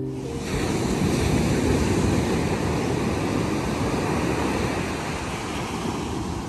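Surf breaking steadily on a sandy beach, with wind buffeting the microphone.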